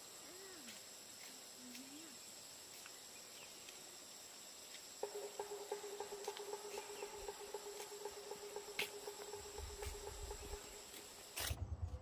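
Insects trilling: a faint, steady high-pitched insect whine, joined about five seconds in by a lower, rapidly pulsing insect trill. Near the end the sound changes abruptly to a louder, rhythmic low thudding.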